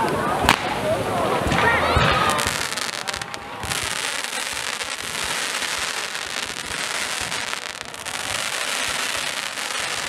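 Fireworks: the hiss and crackle of a pyrotechnic waterfall of falling sparks, with one sharp bang about half a second in. From about a third of the way through, a dense crackling hiss takes over as more fireworks are shot upward.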